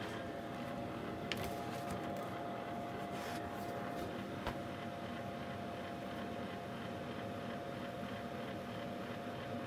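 Artograph AG100 opaque art projector running with a steady whirring hum and a held tone. Light clicks and taps, the loudest about a second in and again near the middle, as a picture and a plastic cover plate are laid on its copy glass.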